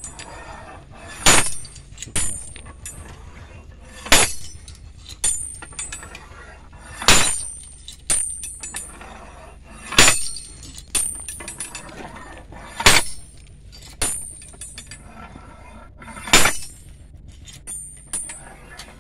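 Standard Penetration Test drop hammer striking the anvil on the drill rod, six heavy metallic blows about every three seconds with a lighter knock between them, driving the split-spoon sampler into the ground as the blows are counted.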